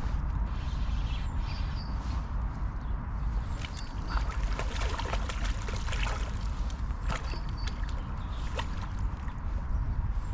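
Steady low rush of river water and wind, with scattered sharp clicks from reel and tackle handling while a hooked chub is played on the rod.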